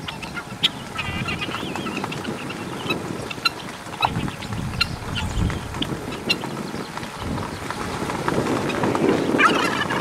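A flock of helmeted guineafowl calling, a stream of short, harsh, sharp calls that grows louder near the end.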